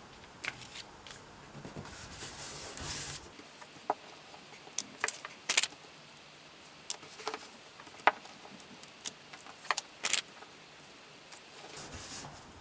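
Origami paper being handled by hands: a soft rustle, then a string of about ten sharp, separate crackles as the creased sheets are unfolded and pressed flat.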